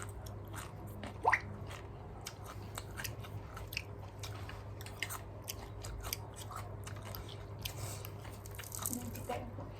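Close-up crunchy chewing of raw cabbage, with irregular crisp crunches throughout. A brief rising squeak comes about a second in.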